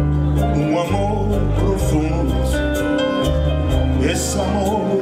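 Live band playing a Cape Verdean morna: plucked guitar over sustained bass notes with light percussion.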